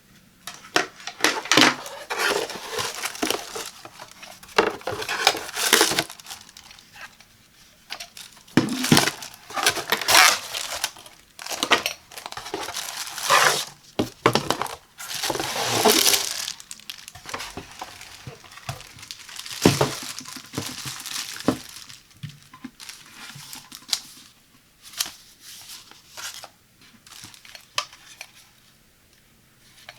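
Packaging being unwrapped by hand: irregular crinkling and tearing rustles for about twenty seconds, then fainter scattered clicks and taps.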